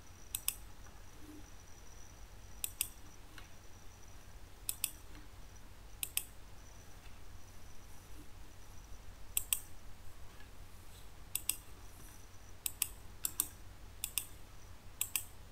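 Computer mouse buttons clicking: a dozen or so short sharp clicks, many in quick pairs, every second or two, over a faint low hum.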